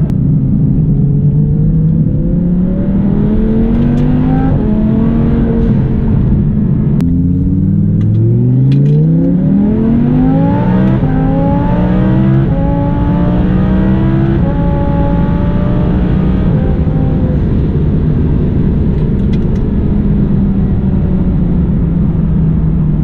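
Hennessey twin-turbo Audi R8 V10 engine accelerating hard, its pitch climbing in steps through several gears. For the last third it eases off, the revs falling slowly as the car settles back to a cruise.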